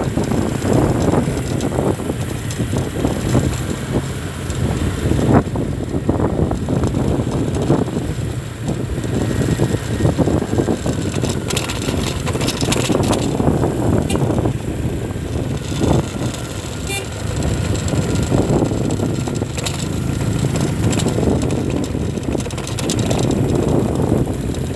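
Town street traffic: a steady rumble of passing vehicle engines and tyres.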